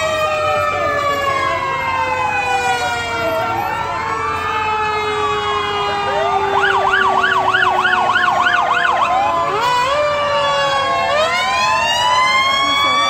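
Several emergency-vehicle sirens sounding at once as a sheriff's patrol car and other emergency vehicles pass: slow wails rising and falling over one another, with a fast yelp of about three cycles a second about halfway through.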